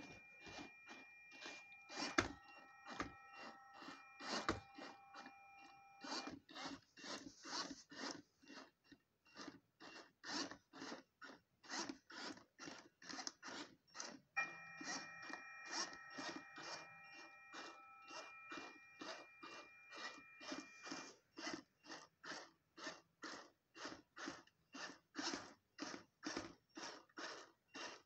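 iRobot Roomba 500-series robot vacuum running underclocked: a regular scraping or clicking about twice a second, with long steady electronic tones held for several seconds near the start and again in the middle. The tones are the robot's beeps played far too slowly because its processor is slowed down.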